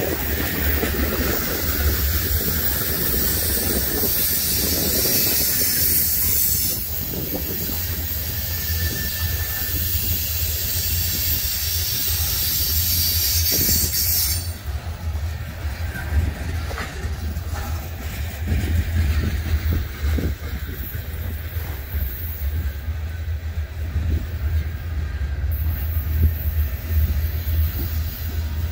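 Coal hopper cars of a freight train rolling past: a steady low rumble with wheel clicks on the rails. A high hissing squeal from the wheels runs through about the first half and stops suddenly midway.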